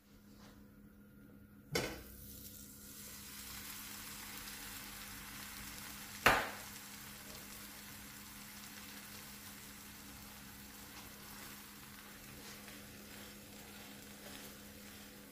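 Sandwich frying in a non-stick pan on a gas stove: a steady sizzle that builds over a couple of seconds after a sharp click, with one loud knock about six seconds in.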